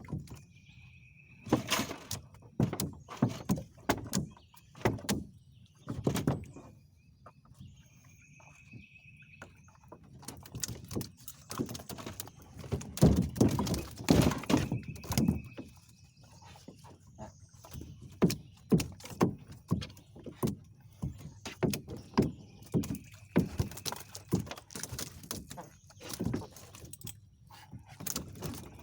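Irregular knocks and thumps, some in quick clusters, the loudest about halfway through. About four short, steady, high whistles sound between them.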